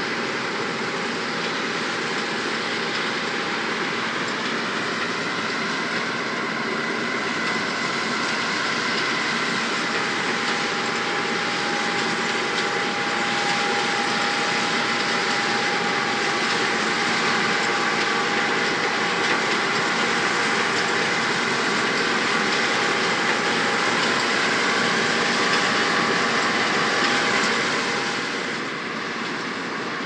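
John Deere 9780i CTS combine harvester running steadily, a dense mechanical din with a constant high whine over it; the level drops a little near the end.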